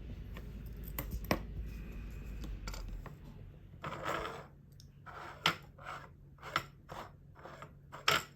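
Small metal clicks and short scrapes of a watchmaker's screwdriver working the reverse-threaded crown wheel screw of an HMT 0231 watch movement, a few sharp clicks first and then a string of brief scraping strokes about every half second. A low hum underneath stops about three seconds in.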